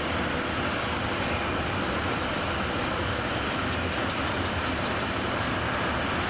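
Container freight train rolling past, a steady rumble of its wagons, with a quick run of wheel clicks over the rails about halfway through.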